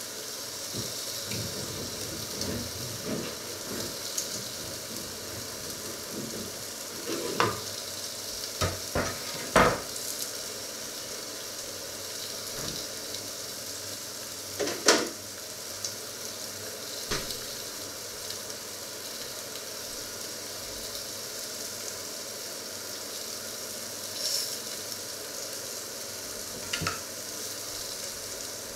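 Steady sizzle of food frying in a covered grill pan, with several sharp knocks and clatters, the loudest about ten and fifteen seconds in.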